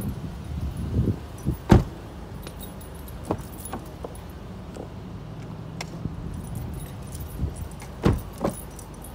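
Handling noise from a handheld camera being carried around a parked car: scattered knocks and bumps, the loudest about two seconds in and another near the end, with faint light metallic jingling like keys in hand. A low rumble fades in the first second.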